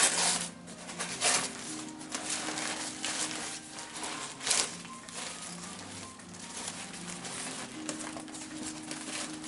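Wrapping paper or plastic around a potted orchid crinkling and rustling as it is pulled off by hand in irregular strokes, the loudest about halfway through. Soft background music plays under it.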